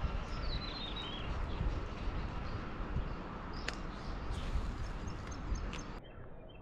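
Small birds chirping over a steady rushing outdoor noise, with a couple of sharp clicks in the middle. Near the end the noise drops and a short chirp repeats at even intervals.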